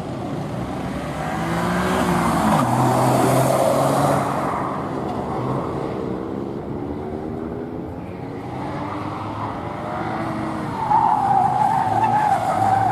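A car driven hard through a gymkhana course: the engine revs up and down through the turns and the tyres squeal. A loud, wavering tyre squeal comes near the end.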